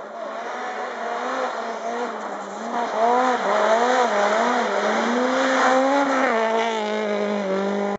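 Honda Civic rally car engine revving hard as the car approaches and slides past on a snowy stage. The pitch rises and falls repeatedly as the throttle is worked, grows louder about three seconds in, and settles to a steadier, lower note about six seconds in.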